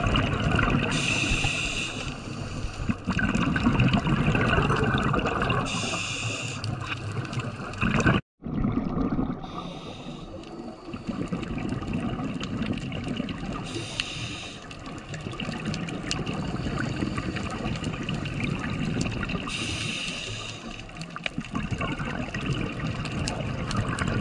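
Scuba diver breathing through a regulator underwater. A short hiss on each inhalation comes about every six seconds, and between them the exhaled bubbles rumble and gurgle.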